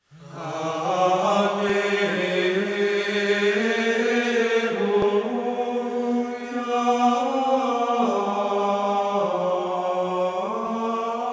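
Intro theme music of chanted voices holding long notes, the pitch moving to a new note every second or two. It fades in quickly at the start.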